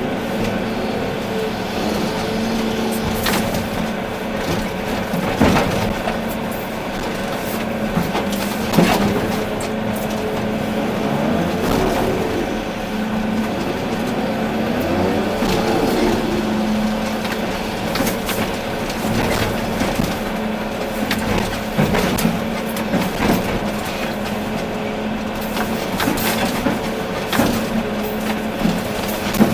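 A Volvo EC380D excavator running under work. Its engine and hydraulics give a steady drone whose pitch wavers briefly around the middle. Scattered sharp knocks sound throughout, the sharpest about nine seconds in.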